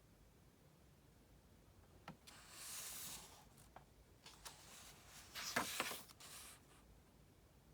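Paper book page being turned: a soft rustle about two seconds in, then a second, louder rustle with a few light taps about five and a half seconds in.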